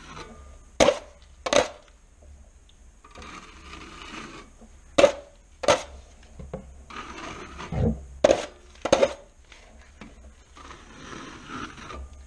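A 12-inch drywall knife dragged across half-dry joint compound on a ceiling in knockdown passes over stomp texture, with a soft scraping on each pass. Each pass is followed by two sharp clacks, and the pattern repeats about every four seconds, three times.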